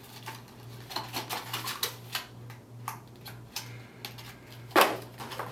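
Cardboard packaging being handled: a series of light clicks and rustles as the boxed instruction manual is turned over in the hands, with one louder knock near the end. A steady low hum lies underneath.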